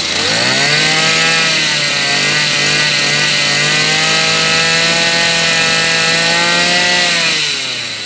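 Maruyama 26 brush cutter's small two-stroke engine revved from idle to full throttle just after the start, held at high revs, then let back down toward idle near the end.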